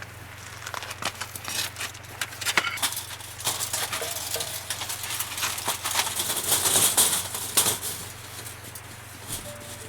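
Irregular rustling and clicking, as objects are handled, loudest about seven seconds in, over a steady low hum.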